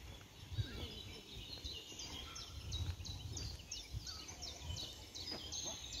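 Songbirds singing: quick runs of short, high, repeated chirps, thickening from about a second and a half in, over a low rumble.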